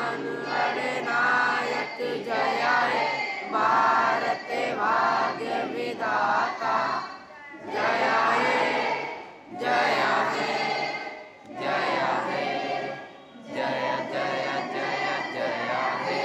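A group of schoolchildren and adults singing together in unison, phrase by phrase with short breaks between lines.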